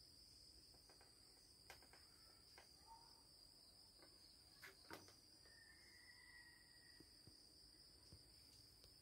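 Faint, steady high-pitched drone of insects from a garden, with a few soft knocks and a short whistling call about halfway through.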